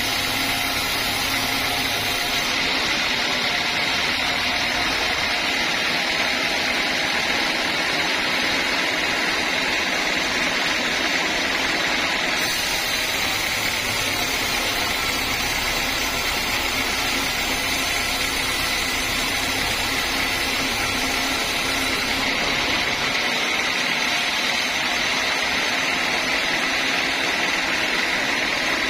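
Homemade band sawmill running steadily, a loud, even machine noise with a high whine.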